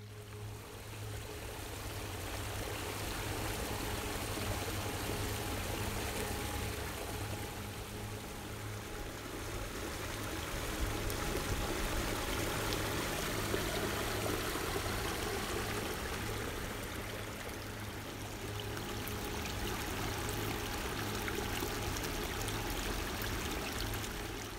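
Shallow forest creek running over gravel and fallen branches: a steady rush of flowing water, a little louder around the middle.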